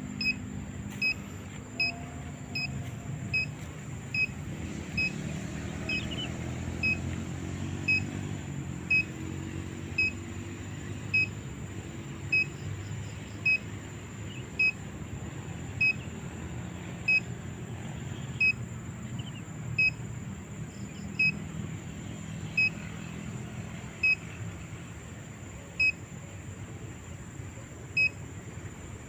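A digital water-detector (dowsing device) gives short, high electronic beeps as it counts off the predicted drilling depth. The beeps come under a second apart at first and slow steadily to about one every two seconds, over a faint low rumble.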